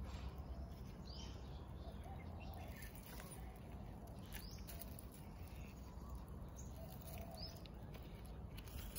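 Birds giving short, scattered chirps over a steady low background rumble, with a few faint clicks.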